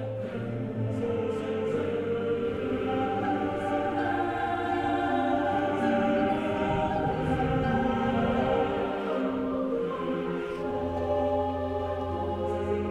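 Background choral music: a choir singing long held chords over a low sustained note.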